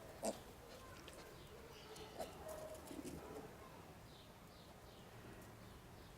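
Faint, scattered bird calls, soft short notes of the kind pigeons or doves make, with a short click about a quarter second in.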